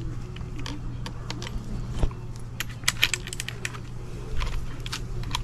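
Clicks and light rattles of die grinder attachments and sanding disc packs being handled, the clicks coming thickest about three seconds in.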